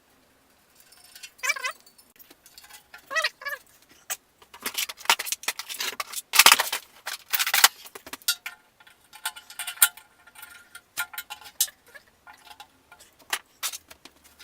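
Irregular metal clinks, rattles and knocks of hand tools and fasteners as a motorcycle's fuel tank is taken off, the loudest knock about six seconds in.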